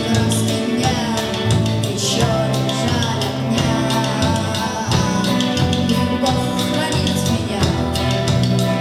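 Band music from a vocal-instrumental ensemble song, with drum kit, bass line and guitar playing a steady beat.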